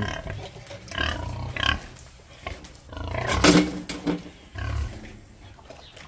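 Yorkshire and Yorkshire-Landrace cross pigs in a pen, noisy with hunger before being fed. They give a few irregular loud cries, the loudest about three and a half seconds in.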